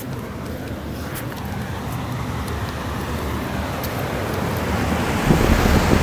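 Outdoor air-conditioner condenser unit running, a steady rushing fan noise that grows louder as the phone comes up close to it, with low rumbling bumps near the end.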